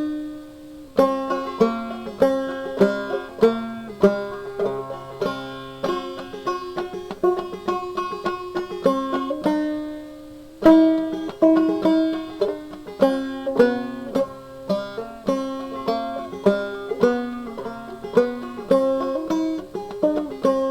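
Banjo music: a quick tune of plucked notes, pausing briefly about a second in and again about ten seconds in.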